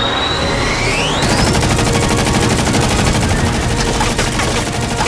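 Fighter jet cannon fire: a rapid, continuous stream of shots starting about a second in, just after a rising jet whine.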